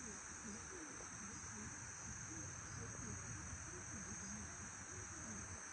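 Steady high-pitched insect drone, like crickets, with faint distant voices murmuring underneath.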